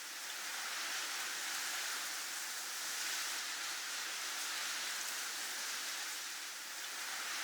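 Snowstorm wind ambience: a steady hiss of blowing wind that swells and eases gently, without distinct gusts.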